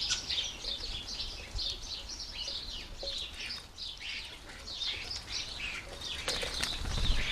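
Small garden birds chirping and twittering at a feeder, a busy run of short, high, overlapping chirps with no pause, and a few soft low thumps near the end.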